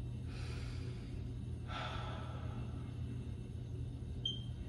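A man breathing slowly and deeply, in two long airy breaths, the second louder, over a steady low hum.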